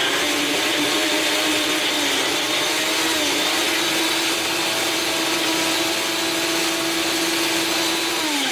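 Electric blender running steadily, blending ice cream with crushed Oreo cookies; its motor pitch dips briefly about three seconds in, and near the end it is switched off and the motor winds down.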